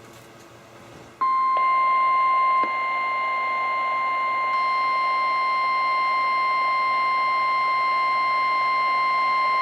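NOAA Weather Radio warning alarm tone: a loud, steady single-pitch tone of about 1050 Hz from a weather radio's speaker. It starts about a second in over faint static and signals that a warning, here a severe thunderstorm warning, is about to be read.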